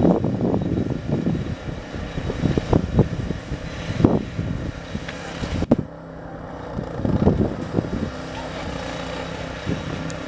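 A machine's engine running steadily, with irregular bursts that could be distant voices and one sharp click about halfway through.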